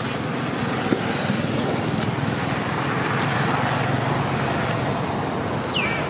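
Steady motor-vehicle noise, a continuous rumble, with a brief falling squeak near the end.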